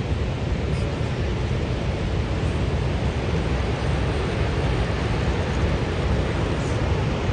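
Steady rushing roar of Niagara Falls' water, with gusty low wind rumble on the microphone.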